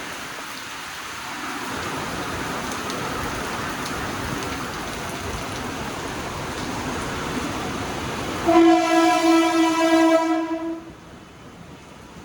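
A train horn sounds one loud, steady blast of about two and a half seconds, starting about eight and a half seconds in and cutting off sharply. Before it there is a steady rushing noise of a train running and heavy rain.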